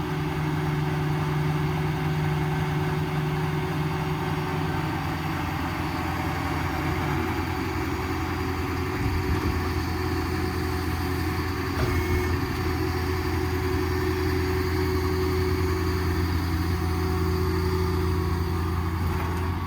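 Ford F-550's 6.7 diesel engine running steadily while it drives the service crane's hydraulics during crane operation. Its low hum changes pitch about halfway through as the crane functions change.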